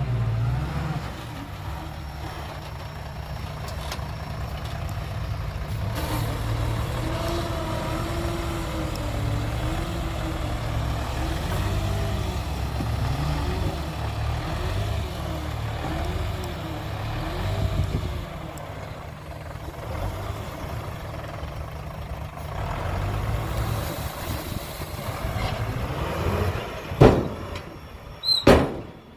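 Heavy truck or earthmoving machine engine running, its pitch rising and falling repeatedly as it is worked, with a few sharp knocks near the end.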